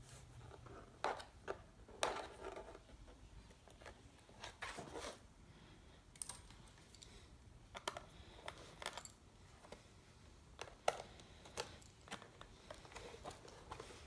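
Faint, scattered plastic clicks and scrapes as the bottom access cover of a Lenovo Z570 laptop is pried loose from its clips.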